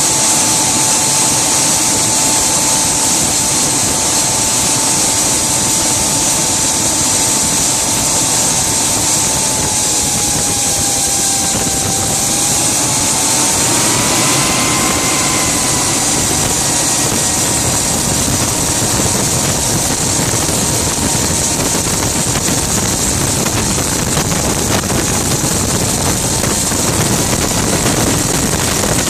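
Rover Jet 1 recreation's gas turbine engine running while the car is driven: a steady whine over a loud rushing hiss. About ten to twelve seconds in the whine sags lower, then climbs higher and holds there.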